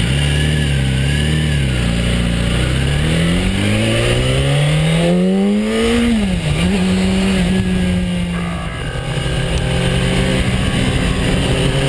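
BMW S1000RR inline-four sport-bike engine under way, running low and uneven for the first few seconds. It then revs up steadily for about three seconds, drops sharply as the revs fall away, and holds a steady pitch after that.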